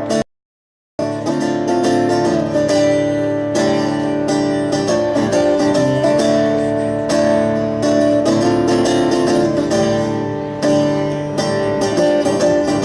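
A rock band plays an instrumental passage between sung lines, with strummed electric or acoustic guitar over sustained notes. The audio cuts out completely for under a second near the start.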